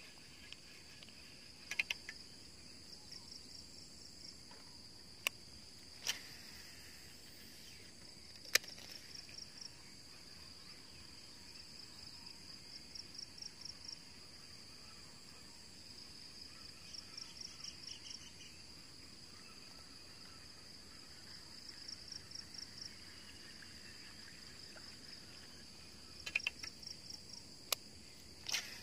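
Insects chirping steadily in the grass: a continuous high-pitched trill with short bursts of rapid pulsed chirps every few seconds. A few sharp clicks stand out over it, the loudest about eight and a half seconds in and a cluster near the end.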